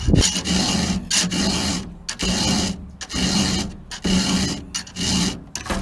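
A round file rasping across the cutter teeth of a McCulloch chainsaw chain, in about six even strokes roughly a second apart: hand-sharpening the chain.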